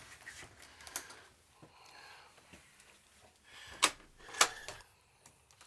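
Footsteps and knocks on the steps up into a fifth-wheel trailer's bedroom: a light knock about a second in, then two louder ones about half a second apart, with faint shuffling between them.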